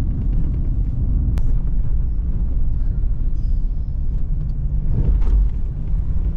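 Steady low rumble of a four-wheel drive driving on a dirt road, heard from inside the cabin: tyre and engine noise, with a single sharp click about a second and a half in and a louder low thud about five seconds in.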